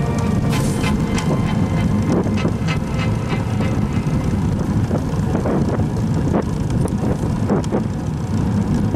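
Wind buffeting the microphone of an action camera mounted on a moving road bike, a steady low rumble mixed with tyre and road noise, with scattered sharp clicks and knocks from the bike going over bumps.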